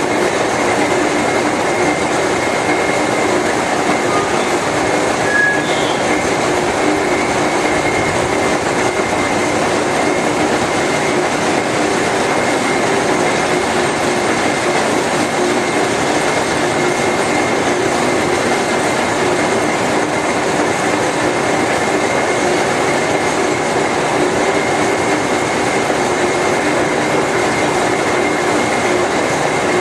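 GE/Fitchburg horizontal spline and pinion hobber running under power: a steady mechanical drone with a constant hum and a high whine from its drive and gearing.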